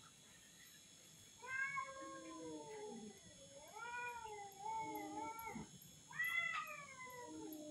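Two cats yowling at each other in a fighting standoff, long wavering drawn-out cries that rise and fall in pitch, sometimes overlapping. Three bouts start about a second and a half in, the last the loudest.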